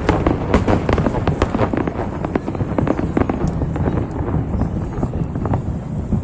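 Aerial fireworks display: a rapid string of sharp bangs and crackles over a continuous low rumble, thinning out in the second half.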